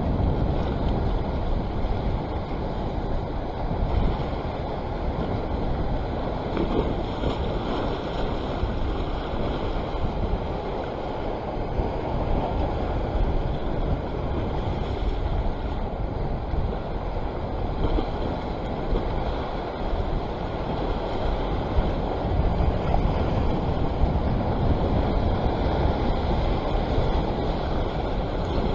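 Sea swell washing and breaking against the rock ledge, an even surging wash of water, with wind rumbling on the microphone.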